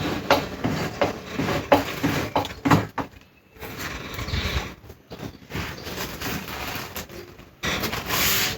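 Handling noises: a string of knocks and clicks with rustling, a short lull about three seconds in, then a louder, hissy rustle near the end.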